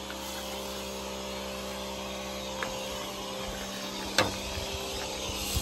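Giraffe Tools 2200 PSI electric pressure washer running steadily, its motor and pump humming under the hiss of soapy spray from a foam cannon on the wand. A short click a little over halfway through.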